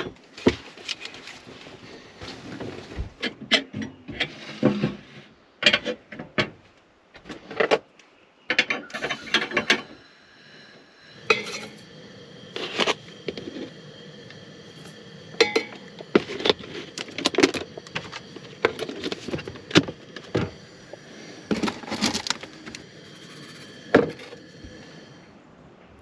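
Clicks, knocks and rustles of coffee being made by hand: a foil coffee bag handled, grounds poured into a collapsible pour-over dripper, a steel mug and kettle moved about. From about ten seconds in, a faint steady whine sits behind the clatter.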